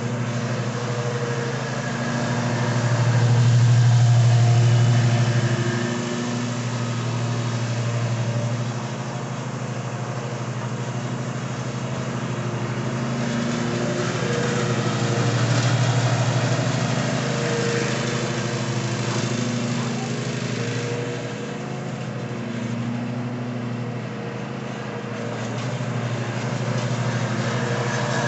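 Ariens Ikon XD 52-inch zero-turn riding mower running steadily while mowing, its engine growing louder and quieter as the mower passes back and forth.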